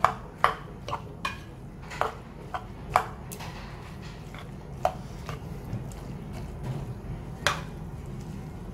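Metal ladle stirring green gram and vegetables in a pressure cooker pot, clinking against the pot's sides: several quick knocks in the first three seconds, then single ones about five and seven and a half seconds in.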